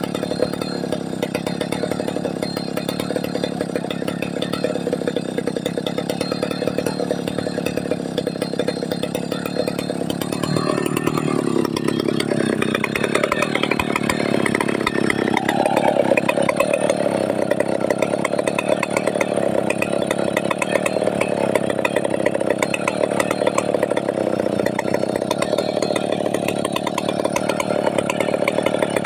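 Chainsaw running and cutting trembesi (rain tree) wood; its engine note climbs about halfway through and holds higher.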